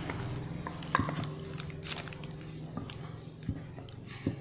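A utensil clicking and scraping against a bowl while stirring cornstarch and dish soap into slime, with a few sharp taps over a steady low hum.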